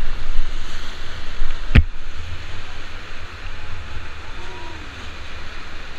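Rushing river water around a rafting boat, a steady loud hiss with a low rumble underneath, broken by one sharp knock a little under two seconds in.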